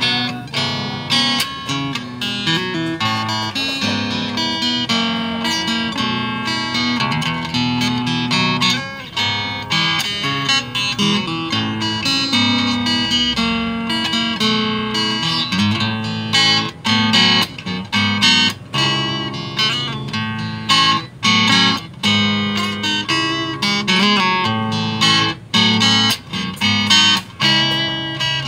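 Legend cutaway acoustic-electric guitar played through an amplifier: a continuous run of picked notes and chords with occasional strums, with a few short breaks between phrases in the second half.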